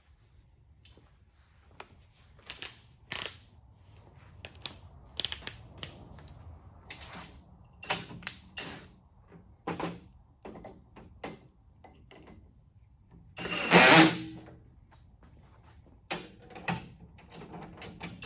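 Irregular clicks and clatters of tools and bolt hardware being handled, with one short, louder run of a cordless brushless drill about two-thirds of the way through.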